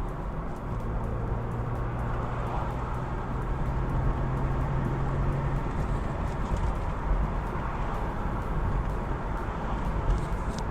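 A 1997 BMW 328i convertible driving with the top down: a steady mix of wind, tyre noise and the inline-six engine's hum. The engine's low steady note stands out for the first half, then sinks into the road noise.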